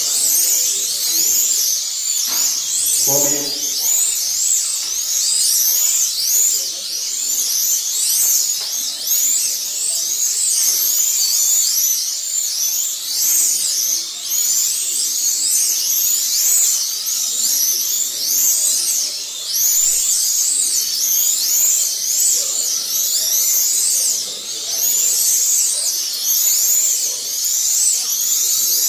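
Several 1/32-scale slot cars' small electric motors whining high and continuously. Their pitch rises and falls over and over as the cars accelerate down the straights and slow for the corners, with many cars overlapping.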